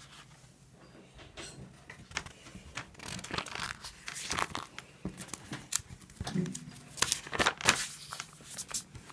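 Paper rustling and crinkling in a series of short irregular strokes, busier after the first few seconds, as of pages or sheets being handled.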